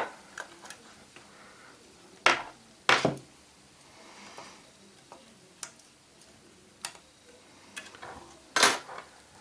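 Small metal parts and a screwdriver clicking and clinking on a work surface while an iPhone 4 is taken apart: a few sharp clicks with light ticks between, and a brighter ringing clink near the end.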